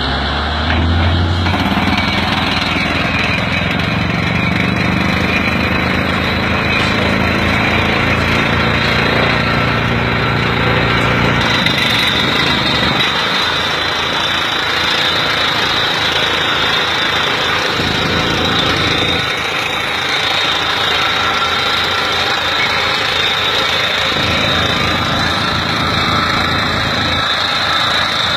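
Tractor-mounted water-well drilling rig at work: the tractor engine running under load with a fast, steady hammering rattle. About thirteen seconds in, the deep engine sound thins out and the rattle carries on.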